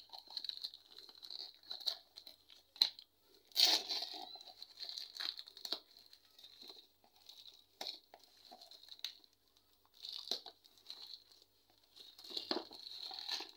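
Black plastic packaging being torn and pulled off a small cardboard box by hand: irregular crinkling and crackling with a few sharper rips, the loudest about three and a half seconds in.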